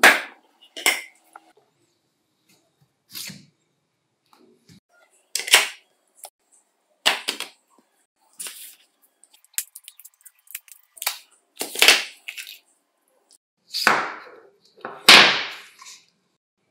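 Impact driver parts being handled on a workbench: a dozen or so irregular sharp clicks and clacks, the loudest near the end.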